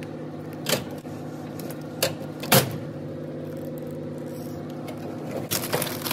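Steady machine hum, with a few short crinkles and clicks as snack packets in an open vending machine's spiral trays are handled.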